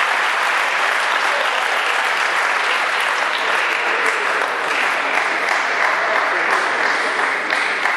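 Spectators clapping steadily, with some voices mixed in.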